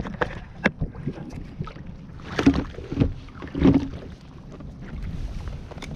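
Irregular knocks, rustles and sloshing water from handling on a fishing kayak, with a few louder swishes about two and a half and three and a half seconds in.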